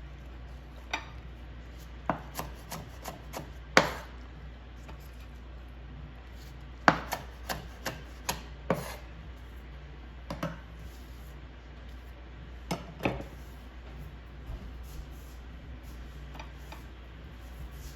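Kitchen knife striking a cutting board while food is sliced, in irregular clusters of sharp knocks, with the strikes thinning out in the later part.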